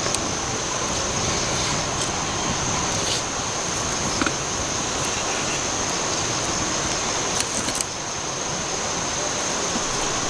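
Steady rush of a shallow rocky stream, with a few sharp crackles and clicks from a campfire and the metal kettle being set over it.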